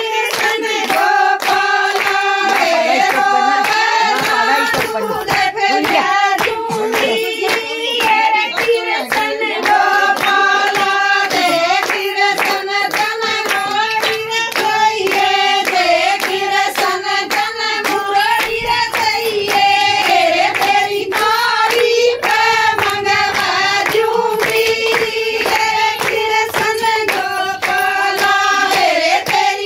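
A group of women singing a Haryanvi Krishna–Radha bhajan together, with the crowd's hand-clapping keeping a steady beat.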